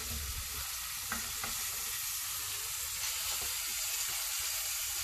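Floured pieces of dorado frying in hot oil in a stainless steel pan, sizzling steadily.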